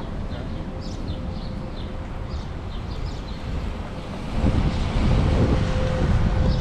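Outdoor background noise with a faint steady tone and repeated short high chirps. About four and a half seconds in, wind starts buffeting the microphone with a loud low rumble.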